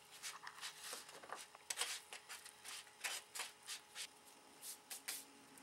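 Fingers rubbing and crumbling moistened sphagnum peat moss in a bowl: faint, irregular crackly rustling.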